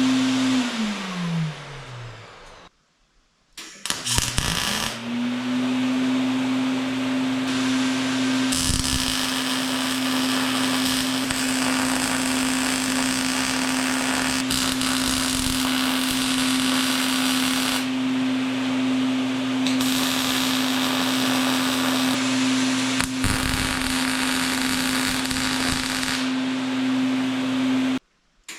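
Angle grinder grinding steel. It winds down over the first two seconds, then after a short gap spins back up and grinds steadily, its motor pitch dipping briefly under load a few times. It cuts off abruptly near the end.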